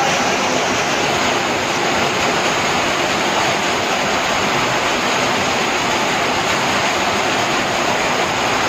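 Muddy floodwater rushing in a fast torrent: a loud, steady rushing noise.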